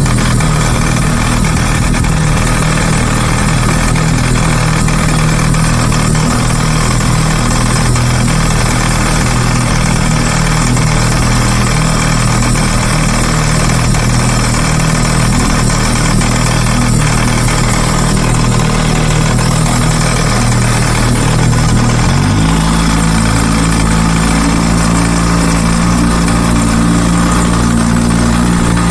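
1949 Johnson QD-10 outboard, a two-stroke twin, running steadily while pushing the boat along; its note changes about three-quarters of the way through. The owner says the engine makes an intermittent knock, though it runs and idles well.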